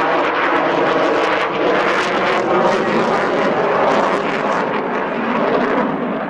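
Russian fighter jet's engines in a flying display: loud, steady jet noise that eases a little near the end.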